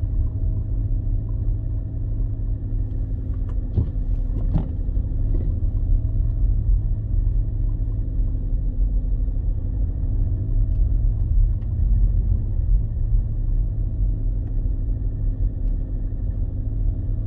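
Car being driven, heard from inside the cabin: a steady low road rumble with an engine hum, and a couple of faint knocks about four seconds in.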